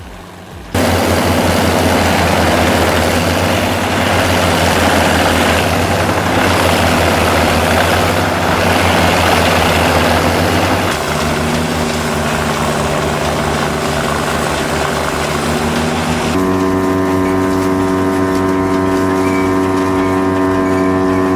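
Engine of a large wood chipper running at full power under a broad, noisy grinding. The engine pitch shifts about halfway through, and near the end the sound turns to a steadier, cleaner engine tone with less noise over it.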